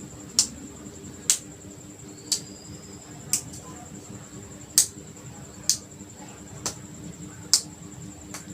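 A series of sharp, short clicks, about one a second but not evenly spaced, over a faint steady high-pitched whine.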